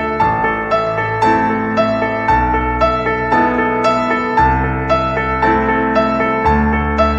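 Background music: gentle piano playing a steady run of notes, about two a second, over held bass notes.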